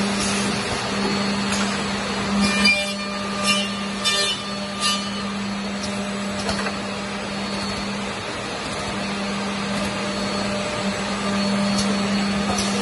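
Six-spindle double end tenoner (Winmax DET2200-6) running in a woodworking shop: its motors and conveyor give a steady hum and whir, with a few sharp clattering knocks about two to five seconds in.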